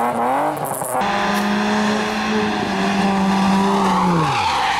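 Rally car engines at high revs. A rising rev breaks off at a cut about a second in. Then a Suzuki Swift rally car's engine is held at a steady high pitch for about three seconds, and its revs fall away near the end.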